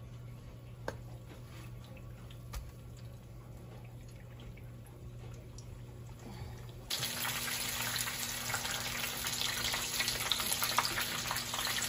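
Breadcrumb-coated tilapia fillets frying in a pan of hot oil: a dense crackling sizzle that starts abruptly about seven seconds in. Before it there is only a faint low hum and a few light ticks.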